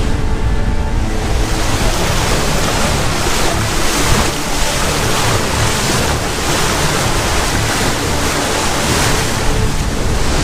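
Wind and sea water rushing past a sailboat at sea, a loud, steady noise with wind buffeting the microphone. Faint background music fades out about a second in.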